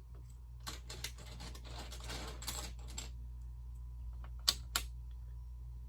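Plastic LEGO pieces clicking and rattling as they are picked out and handled, with a rustle of pieces about two seconds in and two sharper clicks about four and a half seconds in, over a steady low hum.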